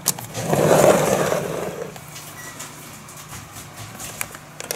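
Pink plastic cat water fountain being handled: a rubbing, scraping noise swells for about a second and a half near the start, with a few light clicks later, over a steady low hum.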